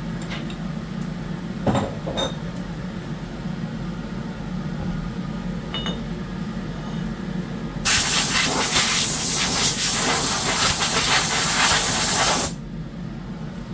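Compressed-air blow gun hissing in one loud continuous blast, starting about eight seconds in and cutting off sharply about four and a half seconds later. Before it, a steady low hum with two light knocks about two seconds in.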